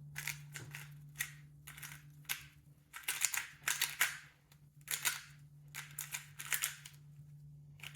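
Moyu RS3M plastic 3x3 speed cube being turned fast by hand: quick irregular runs of light plastic clicks and clacks as the layers snap round.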